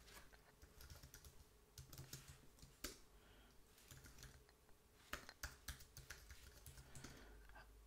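Faint keystrokes on a computer keyboard, typing in short irregular runs with pauses between them.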